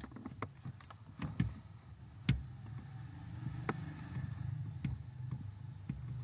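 Chevrolet S10 pickup's steering making irregular clicks and knocks, the loudest about two seconds in, over a steady low engine hum.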